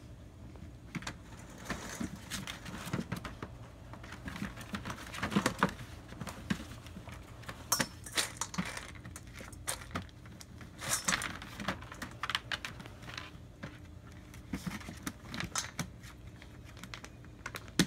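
German Shepherd puppies scuffling in a plastic wading pool: irregular clicks, scratches and rustles of paws and claws on the plastic and of plush toys being pulled about.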